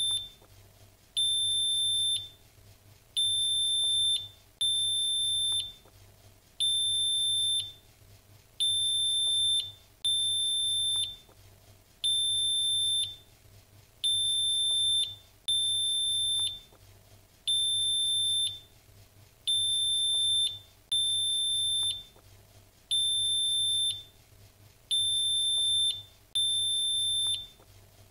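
Countdown leader beeps: a high-pitched electronic tone, each beep about a second long, repeating every one and a half to two seconds over a faint low hum.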